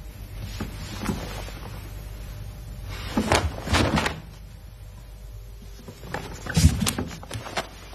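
Karate gi sleeves snapping with quick punches and blocks, in two bursts of several sharp snaps each: the first about three seconds in, the second near the end with a dull thud in it.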